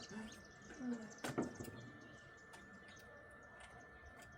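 A few faint, scattered knocks and clicks, the loudest about a second and a half in, over quiet background.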